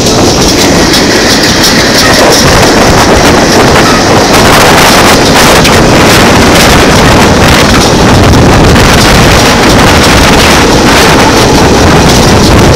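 Moving freight car heard from its end platform: loud wind buffeting the microphone over the steady rumble of the wheels and the frequent clanking and rattling of the coupler and car body.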